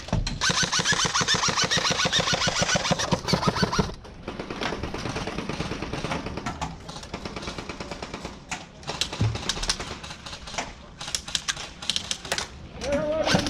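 Airsoft gun firing a long full-auto burst of rapid clicking shots for about three and a half seconds, then scattered single clicks and shots.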